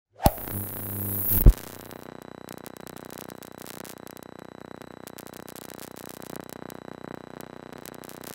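Outro transition sound effect: a sharp hit and a swelling whoosh that ends in a second hit about a second and a half in, followed by quiet background music.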